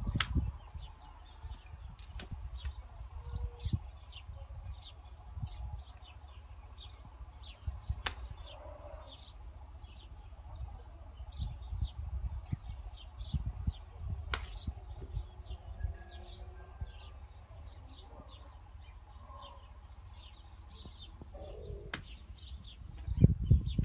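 Small birds chirping in the background: many short, high chirps throughout, over a steady low rumble. A few sharp clicks stand out, scattered through.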